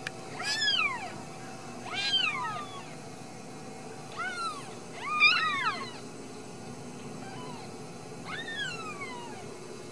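Newborn Ragdoll kittens mewing: about six short, high-pitched cries, each sliding down in pitch, the loudest about five seconds in.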